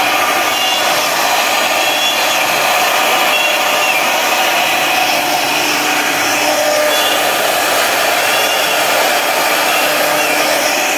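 CNC router spindle running with a 4 mm up-down cutter milling slots in a 20 mm expanded PVC sheet: a steady, dense whirring hiss with a faint high whine that wavers slightly.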